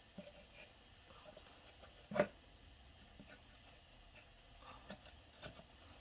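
Light knocks and taps of particleboard furniture panels being handled and fitted together over wooden dowels, with one sharper knock about two seconds in.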